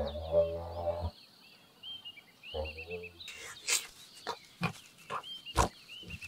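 A giraffe's low moaning call, about a second long, then a shorter second moan, with high chirping behind them. In the second half, a run of sharp irregular clicks.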